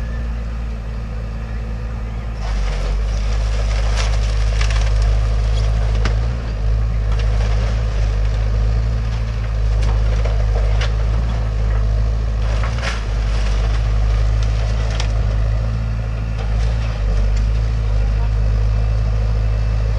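Hyundai excavator's diesel engine running steadily while its bucket crushes and tears apart the house's wooden structure, with timber splintering and several sharp cracks along the way.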